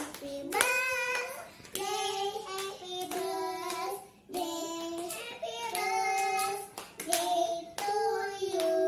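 Small children singing a birthday song together in held, stepping notes, with hand claps along with it.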